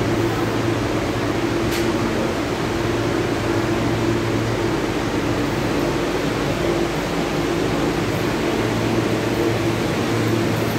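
Steady hum and hiss inside an R160B subway car, from its air-conditioning and ventilation, holding an even pitch throughout with no rise or fall.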